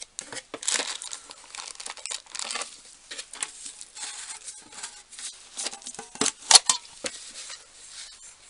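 Packaging being handled, crinkling and rustling irregularly, with a couple of sharp clicks a little past the middle.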